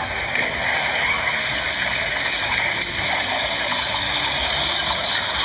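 A loud, steady rushing noise with no clear pitch.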